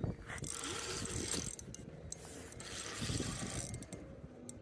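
Fishing reel clicking in two stretches while a hooked carp is being played and line is worked on the reel.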